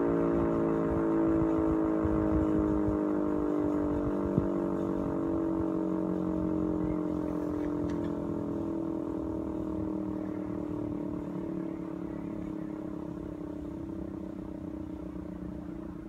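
Outdoor warning siren winding down, one steady tone sliding slowly lower in pitch as it fades.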